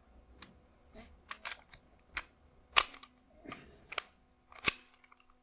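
Novritsch SSP-1 gas blowback airsoft pistol being worked by hand: a string of about eight sharp clicks and clacks as the newly fitted cutout slide is racked and the hammer dry-fired, the loudest snaps about three seconds in and near the end.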